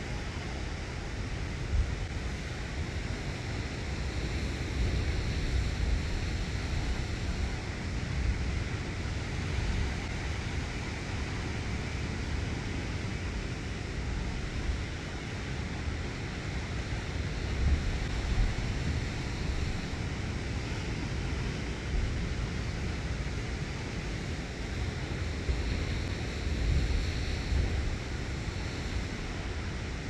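Sea surf washing and breaking around a rocky outcrop: a steady hiss of water that swells a little every few seconds. Wind buffets the microphone with a low rumble underneath.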